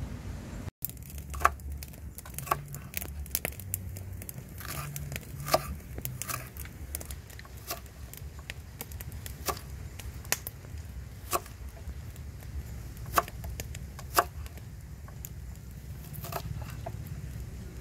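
Large kitchen knife slicing red onion on a round wooden chopping board: irregular sharp knocks of the blade hitting the board, a few of them much louder, over a steady low rumble.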